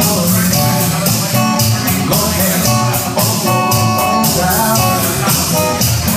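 Live band playing a song on electric bass, electric guitar and drum kit, with steady cymbal beats and a held melody line over them.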